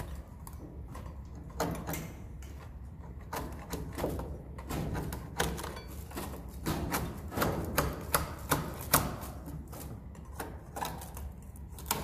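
Irregular sharp clicks and scrapes of a hand tool prying swiftlet nests off wooden nest planks during the harvest, a little busier and louder about two-thirds of the way through.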